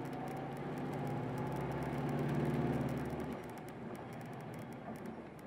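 Hino Blue Ribbon Hybrid city bus's diesel engine pulling under acceleration, growing louder, then dropping away suddenly about three seconds in, leaving the quieter running noise of the bus on the move.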